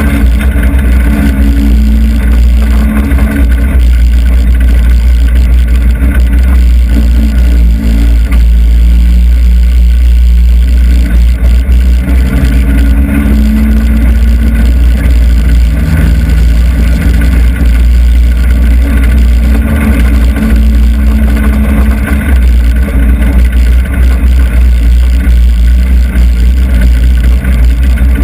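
Hobby stock race car's engine heard from inside the cockpit, running loud with the revs rising and falling as the car circulates in the pack.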